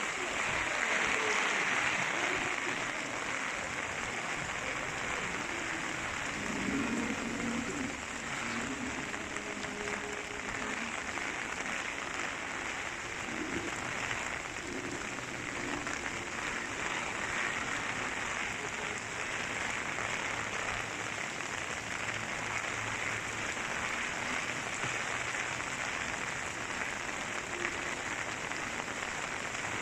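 Steady hiss of typhoon rain falling, even and unbroken.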